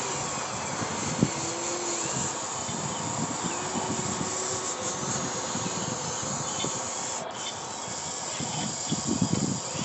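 RC hydraulic excavator at work: a steady hiss with irregular scraping knocks as the bucket works the dirt, the knocks thickest near the end. A faint held tone comes and goes twice along the way.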